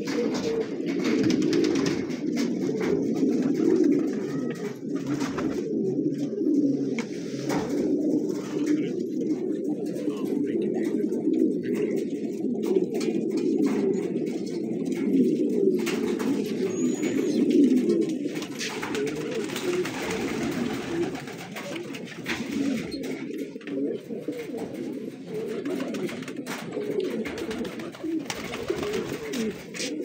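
A flock of domestic pigeons cooing together, a dense, continuous low murmur of overlapping coos.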